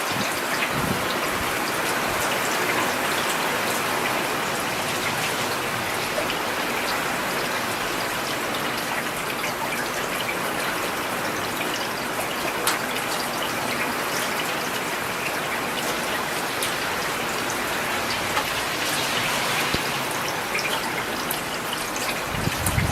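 Steady rain falling, mixed with scattered sharp crackles and pops of a burning wood fire.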